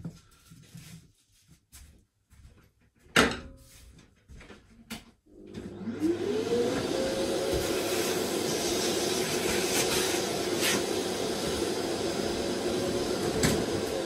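A single sharp knock about three seconds in, then a vacuum motor spins up about five seconds in and runs steadily with a whine and hiss, taking up the wood chips from freshly drilled hinge cup holes.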